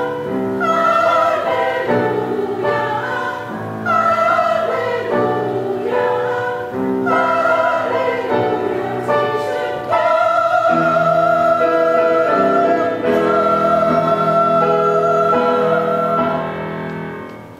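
Women's church choir singing a hymn, ending on a long held final chord that fades away near the end.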